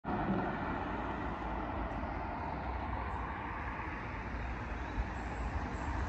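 Steady road traffic noise with a low rumble.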